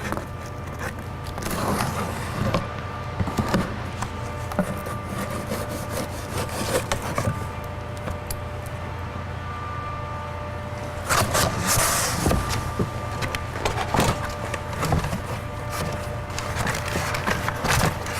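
Cardboard box and packaging being handled as a new power window regulator is unboxed: scattered rustles, clicks and light knocks, with louder rustling bursts about eleven seconds in and again near the end, over a steady low hum.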